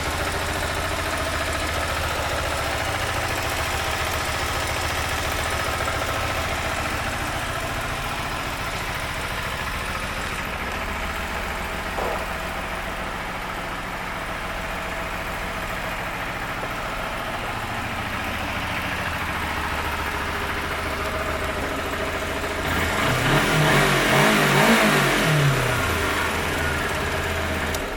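2008 Kawasaki Ninja 250R's parallel-twin engine idling steadily, then revved in a few short blips about three-quarters of the way through before settling back to idle.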